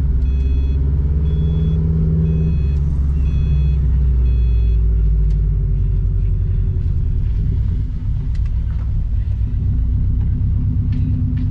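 Turbocharged flat-four engine of a 2014 Subaru WRX STI pulling as the car drives. The engine note rises for the first couple of seconds, then eases off and settles into a steady run. A high electronic beep repeats several times during the first few seconds.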